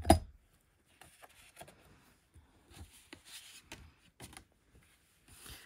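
A single sharp knock as a plastic liquid-glue bottle is set cap-down into a small glass jar, followed by faint rustling and light taps of cardstock and paper being handled.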